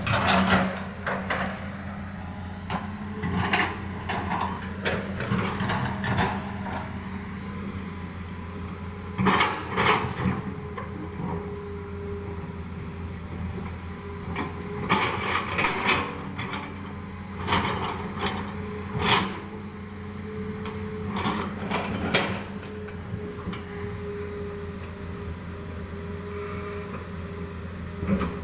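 Excavator engine running steadily, with repeated bouts of stones clattering and knocking as they are loaded into a truck.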